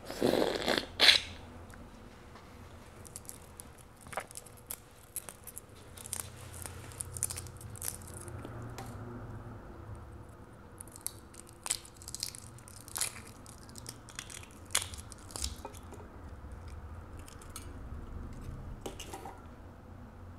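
A loud slurping bite from a balut duck egg held to the mouth in the first second. This is followed by scattered small clicks and crackles of the eggshell being picked off with the fingers, with some chewing.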